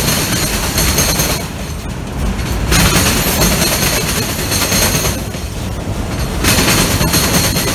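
Freight train rolling past with a steady low rumble, and high-pitched wheel noise that comes in spells about every four seconds.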